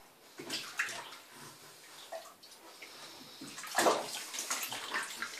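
Water splashing and sloshing in a small plastic baby bath with a baby floating in it, in irregular splashes, the loudest a little under four seconds in.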